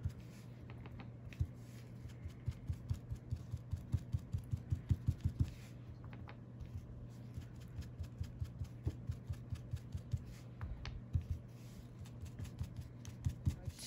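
Foam ink-blending tool dabbing and rubbing distress ink onto paper through a stencil: a run of soft quick taps, fastest and thickest about four to five seconds in, over a faint steady low hum.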